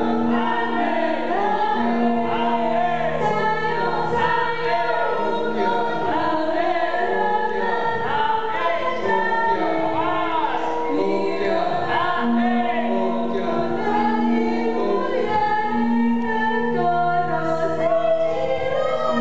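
Dance music with a group of voices singing together over long held low notes.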